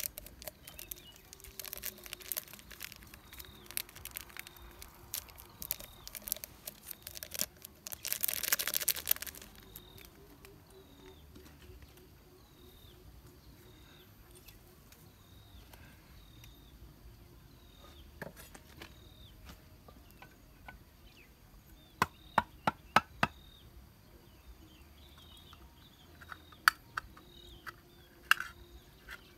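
Crinkling and crackling of a small plastic packet being torn open, with a louder rushing noise lasting about a second and a half near the end of it. After that it is quieter, with birds chirping over and over and a few short runs of sharp clicks.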